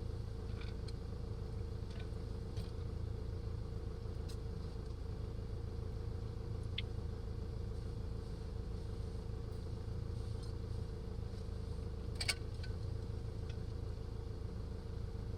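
Engine idling steadily with a low, even hum, with a faint click about twelve seconds in.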